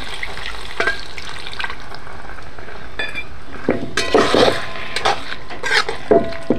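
Mushroom curry sizzling steadily in a hot steel kadhai as water is ladled in at the start. From about halfway on, a steel spatula scrapes and clatters against the kadhai as the curry is stirred.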